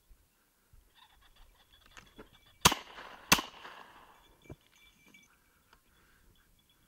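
Two shots from a Rizzini .410-bore over-and-under shotgun, about two-thirds of a second apart, fired at a flushed game bird, each trailing off in a short echo. Before them, from about a second in, the flushed bird rises calling.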